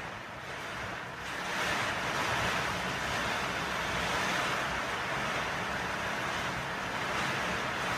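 Steady rainfall: an even hiss of rain coming down, swelling a little about a second and a half in.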